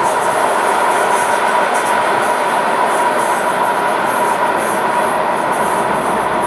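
Train hauled by ER20 diesel locomotives rolling past steadily, a continuous rail noise with a thin steady tone riding on it.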